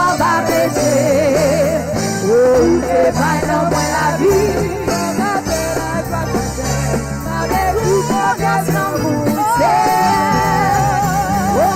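Live gospel worship music: a band with a steady bass line, and a singing voice held with vibrato over it.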